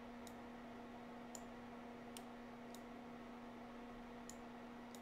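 Computer mouse clicking about five times at uneven intervals, short sharp clicks, over a faint steady electrical hum.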